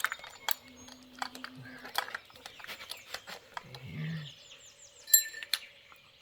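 Hound dogs barking in the distance, the sound echoing, over sharp metallic clicks and clinks from a chainsaw being worked on by hand. A bird chirps briefly near the end.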